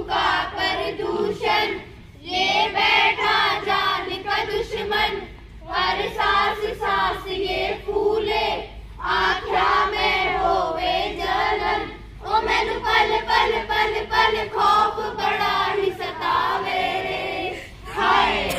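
A group of children singing together in unison, in phrases of two to six seconds with short breaks between them.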